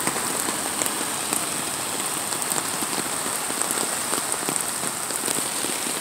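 Steady rain in a rainstorm falling on a wet asphalt street and on an umbrella held overhead: an even hiss made of many small drop ticks.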